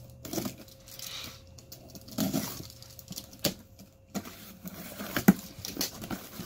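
Packing tape being slit with a small knife and peeled off a cardboard box, then the cardboard flaps pulled open: irregular scraping, tearing and crinkling, with a sharp knock about five seconds in.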